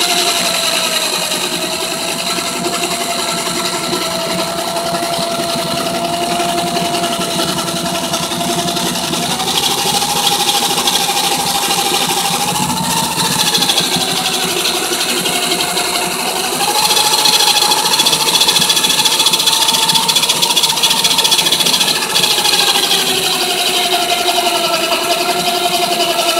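Electric drill running continuously, boring a pilot hole with a small bit into a stripped carburetor screw head. The motor whine wavers slightly in pitch as the load on the bit changes.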